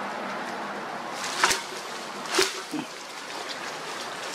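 A wire-mesh animal trap with a wooden frame is handled by hand, giving two sharp clicks about a second apart. A steady hiss of background runs under them.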